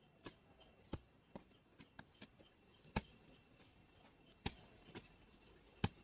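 Garden hoe chopping into loose soil: a series of short, irregular thuds, the sharpest about three, four and a half and six seconds in.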